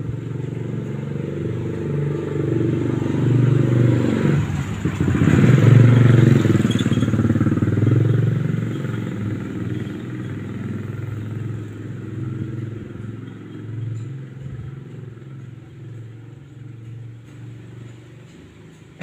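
Motorcycle engine passing close by, growing louder to a peak about six seconds in, then slowly fading away.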